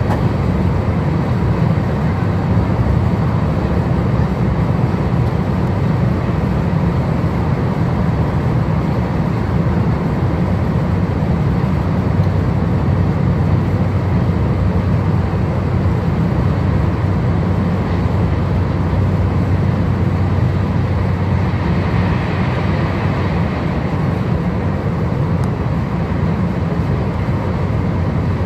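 OUIGO TGV high-speed train running steadily, a continuous low rumble heard from inside the passenger car.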